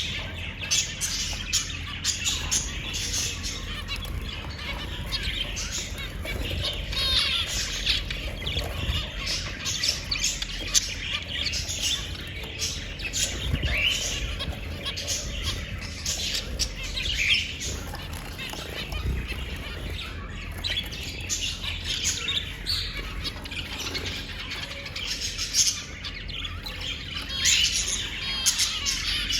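Small parrots chattering: many short chirps and squawks overlap without pause, with a few louder rising calls.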